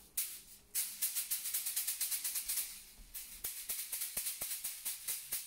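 Bamboo massage whisks, bundles of thin bamboo rods, beating a person's head and shoulders in quick rhythmic strokes, a dry rattling swish with each one. A single stroke comes just after the start, then a steady run of about five to six strokes a second from about a second in.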